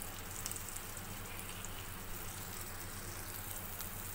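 Stuffed green chillies frying in hot oil in a kadhai: a steady sizzle with a few small pops and crackles.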